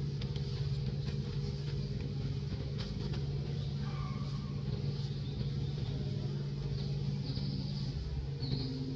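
Steady low hum of a running engine, with faint short high chirps near the end.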